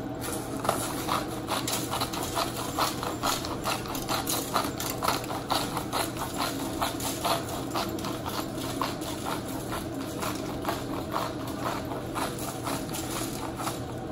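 Hand-turned salt and pepper grinders cracking pink salt and black pepper: a steady, even run of quick clicks as the mill heads are twisted back and forth.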